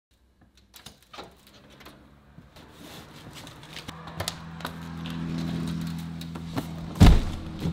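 Storm door opening and a large cardboard box being carried in, with scattered clicks and knocks as it is handled. A low steady hum comes up about halfway through, and a loud thump near the end comes as the heavy box is set down on the floor.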